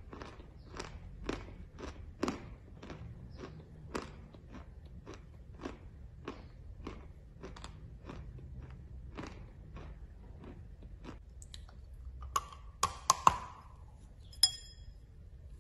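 A person chewing chalk with crisp crunches, about two a second, that grow fainter after about ten seconds. About two thirds of the way through, a fresh chalk tile is bitten into with several louder, sharp snaps, followed by a short ringing click.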